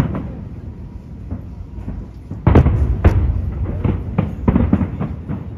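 Aerial firework shells bursting in a large display, a run of deep booms; the two loudest come about two and a half and three seconds in, followed by several smaller bangs.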